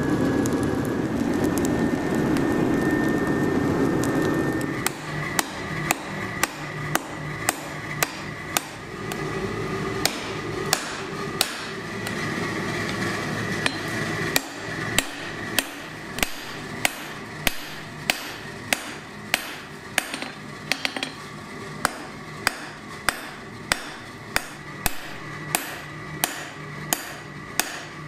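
Steady rushing of the coal forge's fire and air blast for about five seconds, cut off suddenly. Then a hand hammer strikes a hot titanium bar on the steel anvil, about one and a half sharp, ringing blows a second, forging it out into tongs.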